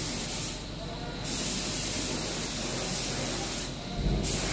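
Steady hiss, dipping briefly twice, with a short low bump near the end.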